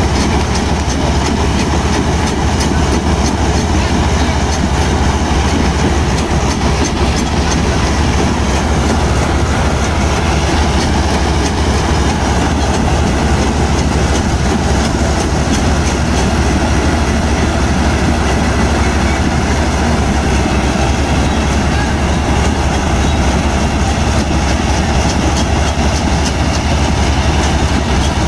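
Diesel engines of a Sonalika and a Mahindra Novo tractor running hard under heavy load in a tug-of-war, a steady deep rumble with rapid firing pulses. The rear tyres spin in the loose dirt.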